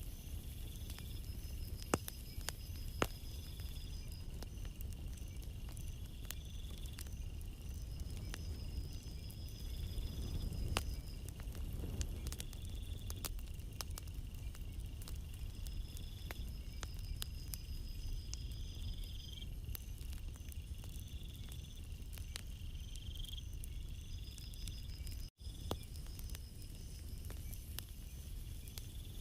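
Night insects, cricket-like, calling in high thin trills that repeat every few seconds over a steady high drone, above a low steady wash of sea surf that swells about ten seconds in. Scattered faint clicks.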